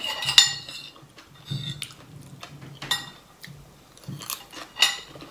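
A metal spoon clinking and scraping against a ceramic bowl several times, the first clink ringing briefly, with soft eating sounds between the clinks.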